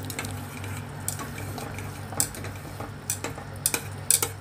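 Chopsticks stirring simmering broth in a stainless steel pot, knocking against the pot's side in several irregular sharp taps, over a low steady hum.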